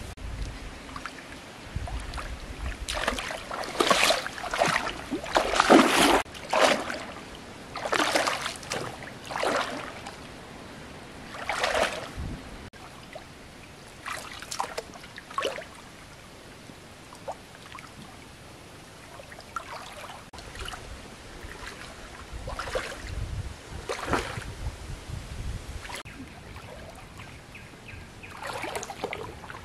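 Shallow river water splashing and sloshing as a person wades and gropes about with her hands, in irregular bursts that are busiest in the first dozen seconds and sparser later, over a low steady stream wash.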